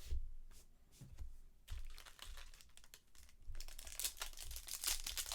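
A few soft knocks from handling, then dense crinkling and tearing of a foil trading-card pack wrapper being torn open, starting about three and a half seconds in.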